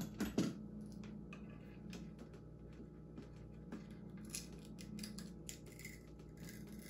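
Small scattered clicks and scrapes of fingers prying at the plastic reflector sticker on an electric scooter's front fork, with one sharper knock about half a second in.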